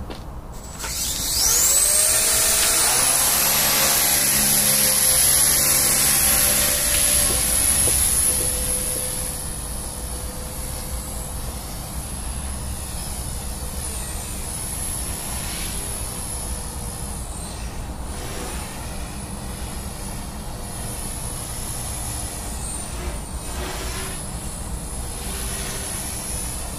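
Micro RC collective-pitch helicopter's brushless motor (a Turbo Ace 31714) spooling up with a sharply rising whine about a second in, then holding a steady high whine over the rotor hum. The sound is loud at first and drops off after about eight seconds as the helicopter flies off, its pitch dipping briefly a few times.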